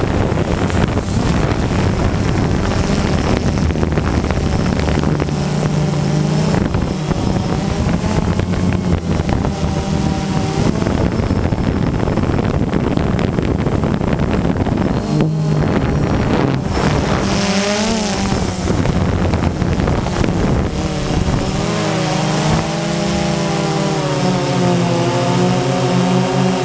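Quadcopter drone's motors and propellers buzzing loudly, heard up close from the drone itself, the pitch shifting up and down as it climbs and manoeuvres, with wind rushing over the microphone.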